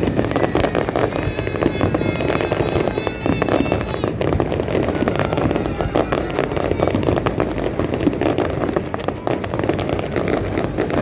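Aerial fireworks display: a dense, continuous barrage of bangs and crackles from many shells bursting in quick succession.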